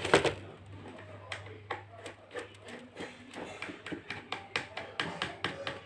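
Irregular small clicks and taps of hands and tools working on an amplifier's circuit board, with a louder knock right at the start, over a steady low hum.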